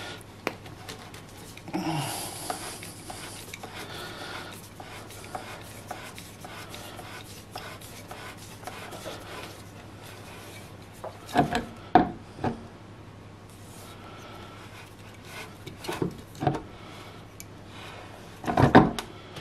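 Compression driver being twisted by hand onto a horn's stiff screw-in throat thread: rubbing and scraping as it turns, a longer scrape about two seconds in, and a few knocks about eleven to twelve seconds in and again near the end.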